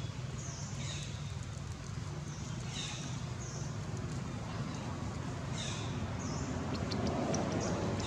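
Birds chirping: short high notes that fall in pitch, repeating every second or so, over a steady low hum.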